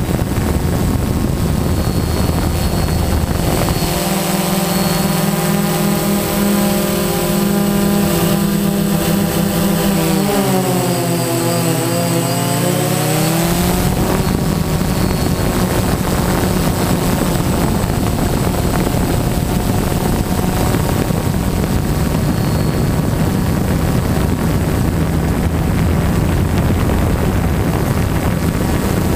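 DJI Phantom quadcopter's electric motors and propellers buzzing steadily, heard from the camera mounted on the drone. From about four to fourteen seconds in, a set of higher tones joins, dips in pitch and rises again.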